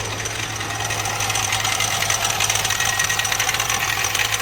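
Mahindra Marazzo diesel engine idling with a fast, even 'tk tk' ticking knock that gets louder about a second in. This knock is the fault being traced on the engine's common-rail fuel system.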